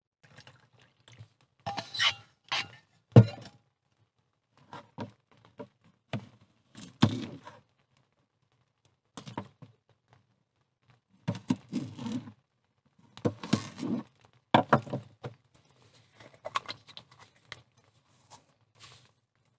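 Scattered knocks, clicks and clatter of things being handled, the loudest a sharp knock about three seconds in. Later a kitchen knife slices a cucumber on a plastic cutting board, knocking against the board in short clusters.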